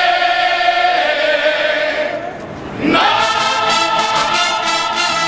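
Mariachi ensemble's voices holding one long note together, which ends about two seconds in. After a short lull, the full mariachi band of trumpets, violins and guitars strikes up together about three seconds in.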